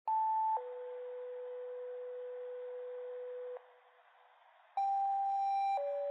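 Two-tone sequential dispatch paging tones over a fire/EMS radio channel, the alert that sends a crew to a call. A short higher tone steps down to a long lower tone. After a brief pause of radio hiss, a second pair follows: a higher tone of about a second, then a lower tone held on.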